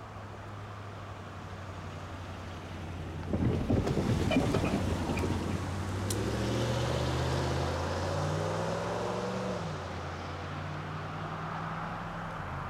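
Diesel locomotive engines running as a double-stack container train approaches. A louder burst of rumble and clatter starts about three seconds in. The engine's pitch rises slightly for a few seconds, then drops back.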